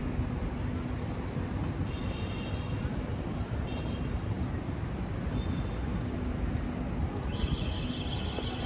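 Ambience of a busy pedestrian square: a dense hubbub of people's voices and movement. High steady tones sound briefly twice, and another comes in near the end and holds.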